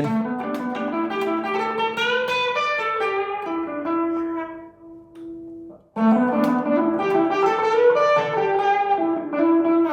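Fender HSS Telecaster electric guitar with its bridge humbucker in the coil-split position, played through a Vox AC30 S1 amplifier. Two single-note melodic phrases: the first ends in a held note that fades out about halfway, and the second starts after a brief gap. The player judges this split bridge tone the guitar's weak point.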